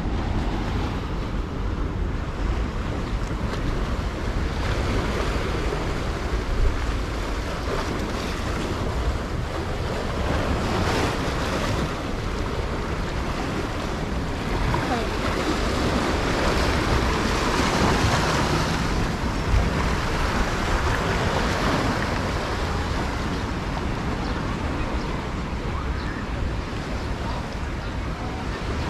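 Small sea waves washing onto the beach, with wind buffeting the microphone; a louder wash swells up about halfway through.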